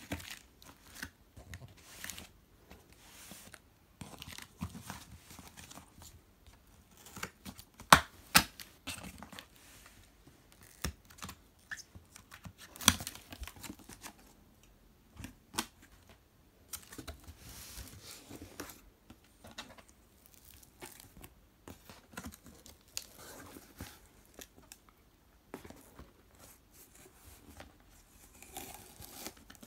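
Brown parcel tape being peeled and ripped off a cardboard shipping box, with the cardboard flaps scraping and rustling as they are opened. The sounds come in irregular rips, with a few sharp clicks, the loudest about eight and thirteen seconds in.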